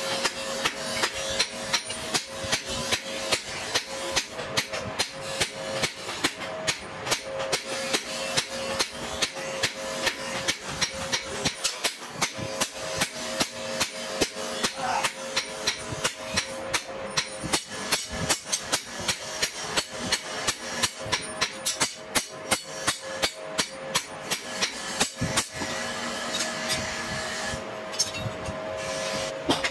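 A hammer forging a red-hot leaf-spring steel knife blade on an anvil: steady, rapid blows of about three a second, with a steady ringing tone underneath.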